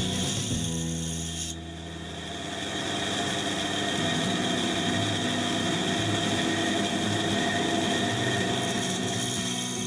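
Fine-cut band saw running with a steady whine and hum as its thin blade cuts a small wooden workpiece. The sound dips briefly about two seconds in, then returns.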